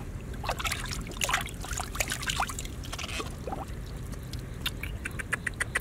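Hands splashing and groping in shallow muddy water in a small pit, with drips and plops of water. Near the end comes a quicker run of splashes as a snakehead fish is lifted out dripping.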